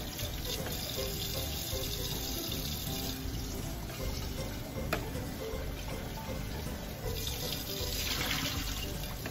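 Chicken curry sauce sizzling and bubbling in a nonstick frying pan as a wooden spatula stirs and scrapes through it, with one light knock of the spatula on the pan about five seconds in. The hiss grows louder near the end.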